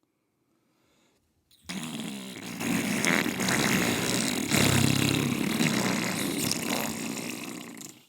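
A long cartoon fart sound effect, starting about a second and a half in and running for some six seconds, loudest about halfway through, which the character takes for having shit his pants.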